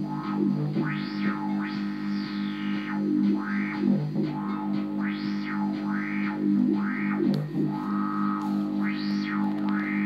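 Hardware synthesizers (Korg Volcas, Behringer Neutron, Roland TB-3) jamming live: a steady low drone pulses in a quick repeating pattern, and a resonant filter is swept up and down over it about every one to two seconds as the knobs are turned.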